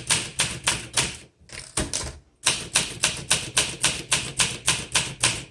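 1963 Olympia SM7 manual typewriter being typed on steadily, the keys striking about six times a second, with two short pauses in the first half.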